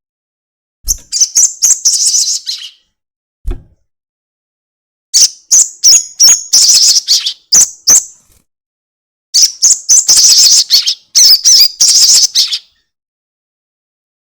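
Sogon bird giving its long chattering call in three bursts of rapid, high notes, each lasting one to three seconds. A short low thump falls between the first two bursts.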